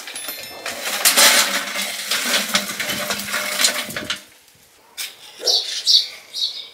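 Lumps of charcoal poured from a metal bucket into a metal stove drum: a dense clatter for about three seconds. A few short scratches follow near the end as a match is struck to light it.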